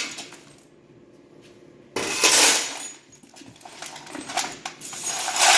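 Metal hardware and tools clinking and rattling during work on a light-bar bracket, in a loud burst about two seconds in and again near the end.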